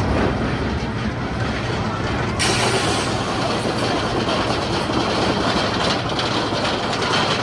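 Roller coaster train rumbling along its track, heard with heavy wind noise; the sound changes abruptly about two and a half seconds in.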